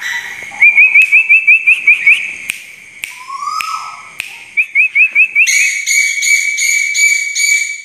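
A pet songbird (burung tuwu) singing again after a spell of not singing: runs of quick rising chirps, a lower whistle near the middle, then a long, pulsing high note over the last couple of seconds.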